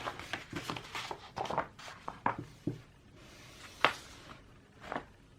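Paper being handled, rustling with quick light taps and crinkles through the first few seconds, then two sharper clicks near the end. This is most likely the folded album poster being unfolded and shown.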